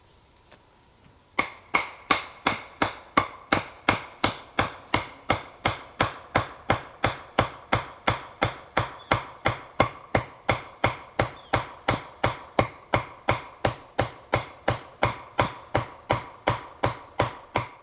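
Wooden mallet striking the top of a wooden stake over and over, driving it into the ground: a steady run of sharp wood-on-wood knocks, about three a second, starting about a second and a half in.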